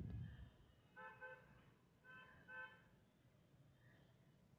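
Faint vehicle horn from outside: a few short toots in two groups about a second apart, over near-silent room tone.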